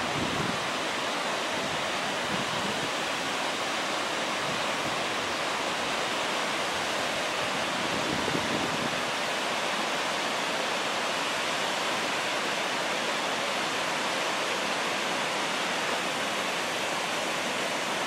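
Steady rushing of a waterfall and the creek below it in a steep rock gorge, an even hiss with no change.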